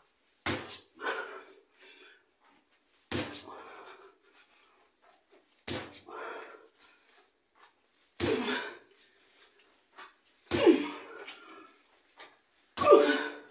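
A person's short cries or grunts repeating about every two and a half seconds, each starting with a sharp thud.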